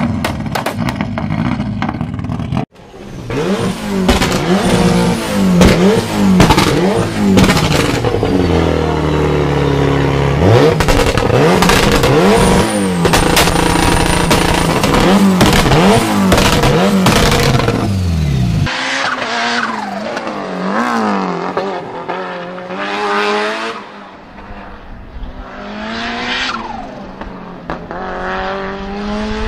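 Lancia Delta Integrale rally cars' turbocharged engines. One idles steadily for the first few seconds, then an engine is revved hard over and over, its pitch shooting up and falling back sharply. From about two-thirds in, a race car accelerates on track, its pitch climbing again and again as it pulls through the gears.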